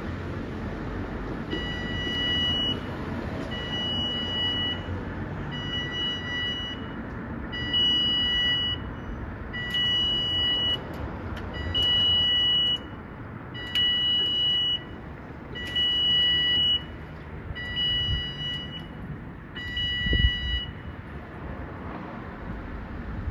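Railway level crossing warning alarm sounding as the barriers come down to close the road for an approaching train: a two-tone electronic alarm in about ten even bursts, roughly a second on and a second off. It starts a moment in and stops near the end, over a low background rumble.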